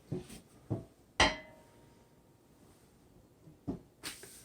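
Metal bike rack being handled and set down: a few knocks and clicks, the loudest a clink with a short metallic ring about a second in.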